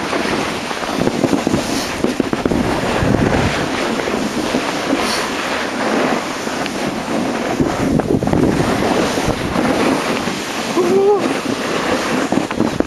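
Wind buffeting the microphone, a steady rough rush, with a brief voice near the end.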